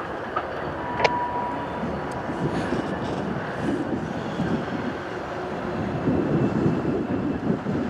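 Pair of EMD MP15T diesel switcher locomotives rumbling as they roll slowly forward, louder in the second half. A single sharp click about a second in, followed briefly by a thin steady tone.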